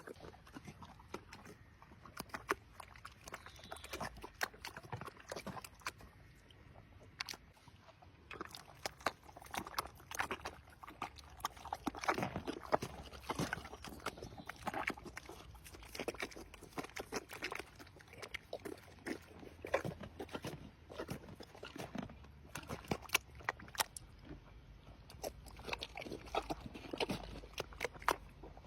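A horse chewing its feed: irregular, crisp crunches, coming thicker after the first several seconds.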